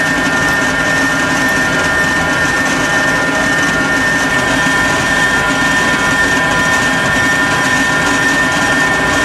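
6LN-120 combined rice huller and rice mill running steadily: a loud, even machine drone with a constant high whine over it.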